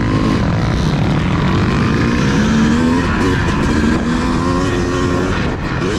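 Motocross dirt bike engine running and revving, its pitch rising and falling as the bike rides, over a steady rush of low noise.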